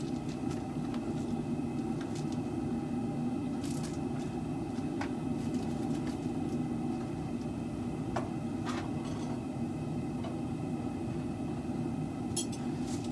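A forge running with a steady low roar. A few light metal clinks come at scattered moments; there is no hammering.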